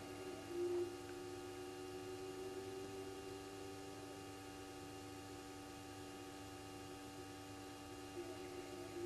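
Steady electrical hum made of several level tones, with one short low hoot about a second in.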